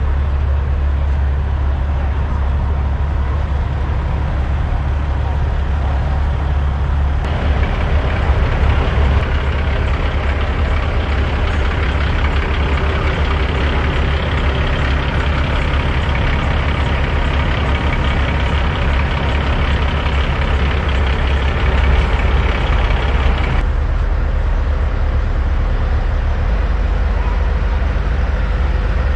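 Diesel engines of parked semi trucks idling in a steady low rumble, mixed with the chatter of a crowd. The sound gets fuller about seven seconds in and drops back near the last quarter.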